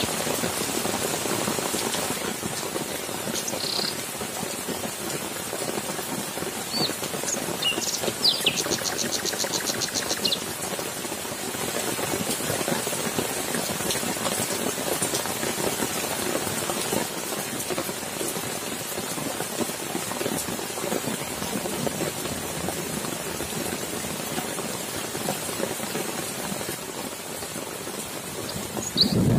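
Steady heavy rain falling on leaves, grass and standing water. Birds chirp a few times, with a rapid trill about nine seconds in, and a low rumble of thunder begins at the very end.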